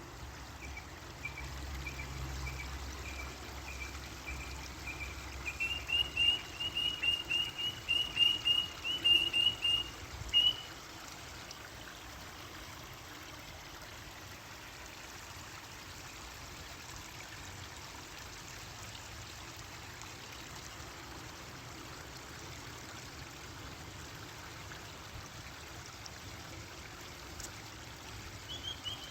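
A bird calling in a long run of short, high chirps, growing louder and quicker about six seconds in and stopping at about ten seconds, over a steady rush of water; the chirping starts again near the end.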